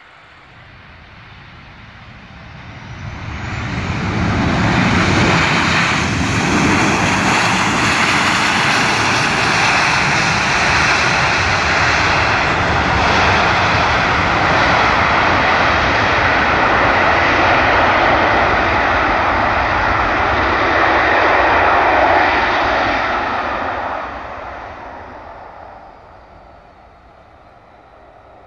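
Boeing 737-800's twin CFM56-7B turbofan jet engines on the landing roll: the jet noise swells about three seconds in, stays loud for some twenty seconds as the airliner passes, then fades away near the end.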